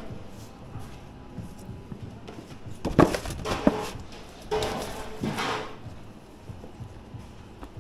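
Two short bouts of clattering and scraping with sharp knocks, about a second each, from kitchen gear being handled.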